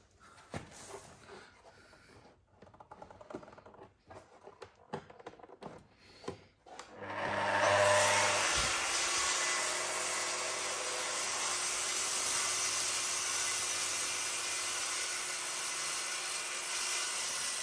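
Spindle moulder with twin saw blades cutting a tenon in oak. After a few faint knocks of the timber being positioned, the machine starts about seven seconds in and runs loud and steady for about ten seconds, then dies away near the end.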